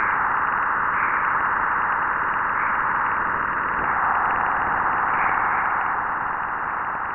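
Jupiter's radio emissions, recorded by NASA's Juno spacecraft and played back as sound: a steady, storm-like rushing hiss that swells slightly a few times and fades near the end.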